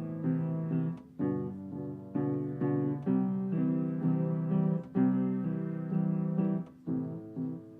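Acoustic guitar strummed in a steady rhythm of chords, played live with no singing yet. It is the instrumental lead-in to a folk song.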